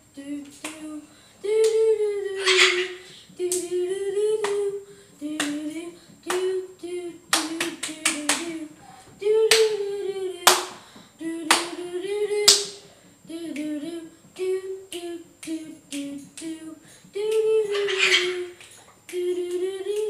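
Small white cockatoo babbling in short, pitched, voice-like phrases that rise and fall, broken by sharp clicks and a few shrill squawks.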